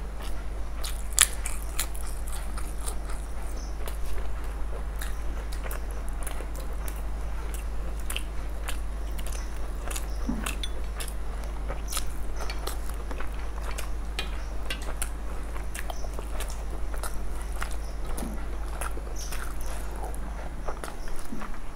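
Close-miked eating sounds: wet chewing and lip smacks of fried rice and boiled egg curry eaten by hand, with fingers squishing and mixing rice on steel plates, as many small scattered clicks over a steady low hum.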